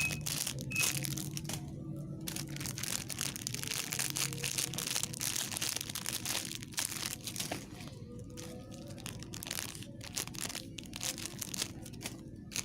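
Irregular crinkling and crunching as a squishy foam toy and its wrapping are handled and squeezed in the hands. A faint steady low hum runs underneath.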